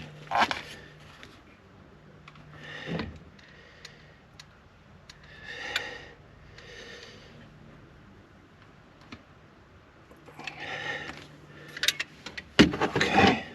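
Intermittent rubbing, scraping and clicking of hands and a tool working sealant around a car's tail light, with the loudest burst of handling near the end.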